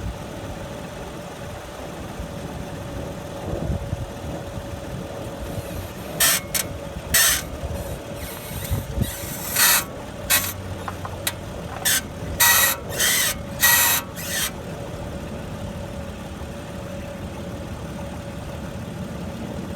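The engine of a 2011 BMW 535i idling steadily while the steering is turned at a standstill. From about six seconds in to about fourteen seconds in come about a dozen short, scratchy squeaks from the front suspension. The owner puts them down to the right-side lower control arm.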